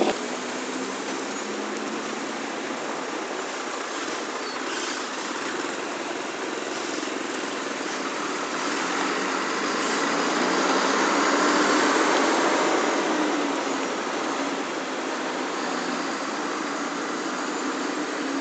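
Roadside traffic noise with vehicle engines running steadily. A vehicle passes about ten seconds in, growing louder and then fading.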